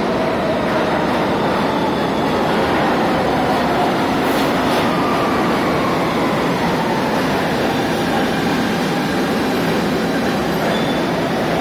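R68A subway train pulling into an underground station and running along the platform: a loud, steady rumble of wheels on rails, with a faint whine falling in pitch midway as it slows.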